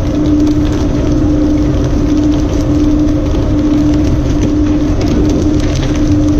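Fishing boat's engine running steadily under a constant rush of water spray and splashing along the hull.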